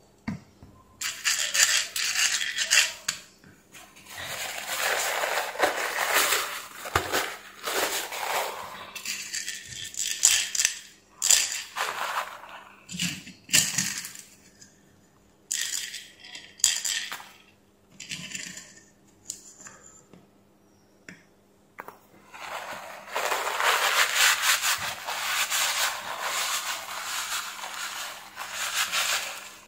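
Paper towel rustling and being crumpled in long noisy stretches as gearbox parts are wiped, with a few short clicks of small steel gear pins in between.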